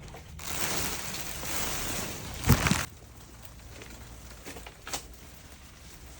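Rummaging through clutter in a trailer as a kitten is pulled out: about two and a half seconds of rustling and scraping that ends in a loud thump, then a faint knock near five seconds.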